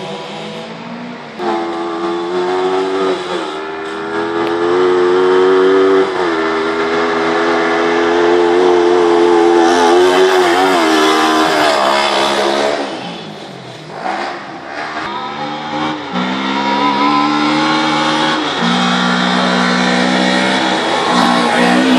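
Autocross car engines running hard at high revs, the pitch stepping up and down with gear changes; about two-thirds of the way in the revs drop briefly, then pick up again.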